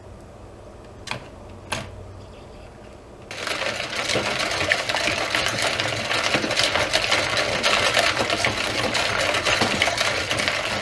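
Wire whisk stirring ice cubes in a bowl: a fast, continuous clattering rattle that starts about three seconds in, after two light clicks.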